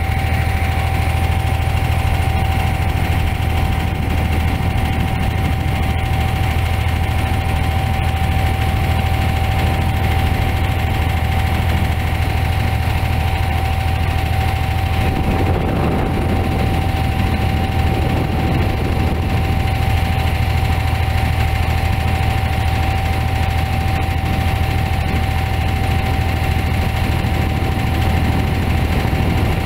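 Boat engine running steadily, heard on board: a low drone with a thin steady whine above it and water noise underneath.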